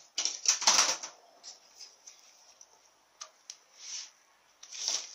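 Hand tools being picked up and handled on a newspaper-covered bench: a rustle and clatter of metal about half a second in, then a couple of light metal clicks and more rustling as a cylindrical metal tool is set over the transmission's servo piston, ready to tap it in.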